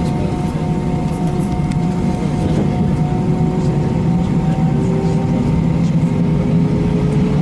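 Airbus A321 cabin: steady hum of the jet engines running on the ground, with thin whining tones over it, one rising slightly about five seconds in.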